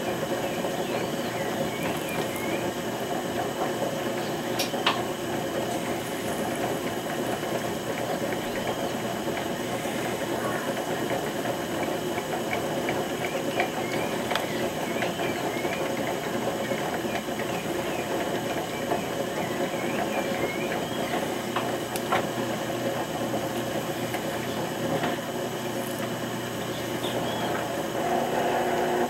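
Potter's wheel motor running at a steady speed, a constant even hum, with a few faint clicks.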